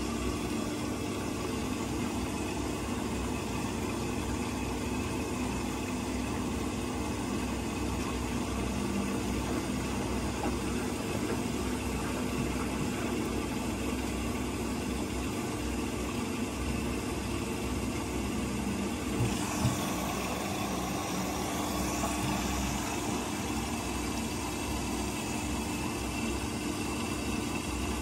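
Whirlpool front-loading washing machine filling with water: a steady rush of water into the drum at the fill stage, before the main wash starts, with a couple of small knocks about twenty seconds in.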